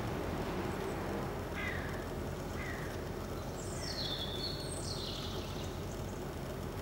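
Outdoor street ambience: a steady low background hum with birds calling over it, a couple of short falling chirps about two seconds in and a louder run of high, falling calls around four to five seconds in.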